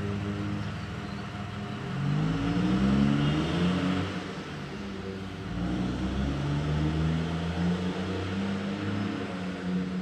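Engine noise, with several overlapping tones that rise and fall in pitch, loudest about two to four seconds in.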